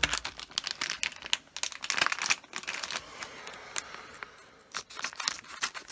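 Shiny foil LEGO minifigure blind bag crinkling and crackling as it is picked up and handled.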